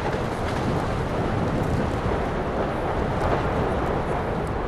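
Lava fountains erupting from a volcanic fissure, a steady rushing rumble without a break.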